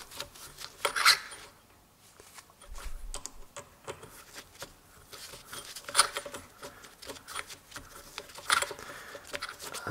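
Socket wrench turning a tight nut on a turbocharger housing: irregular small metal clicks and scrapes, with a few louder clacks about a second in, about six seconds in and near the end.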